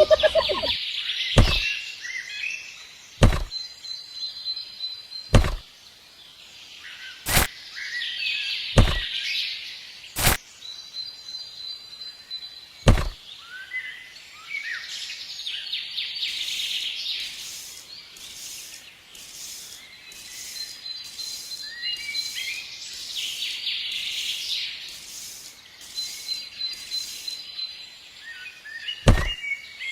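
Birds chirping, with sharp single knocks every couple of seconds through the first half and one more near the end. A quick, even high pulsing joins in over the second half.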